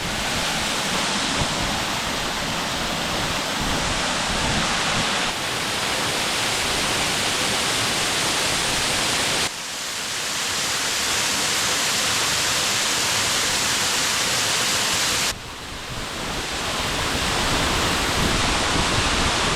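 Waterfall rushing: a steady, loud noise of falling water, broken by two sudden dips in level, about halfway through and about three-quarters of the way in.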